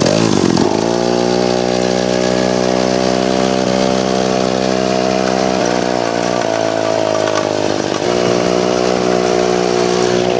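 Two-stroke chainsaw engine powering a homemade drift trike, running steadily. Its pitch wavers and dips for about a second around the middle, then steadies again.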